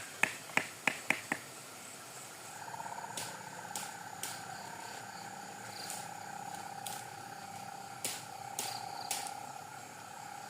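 A quick run of sharp knocks, about three a second, in the first second and a half, then a steady pulsing trill of night wildlife with scattered single clicks.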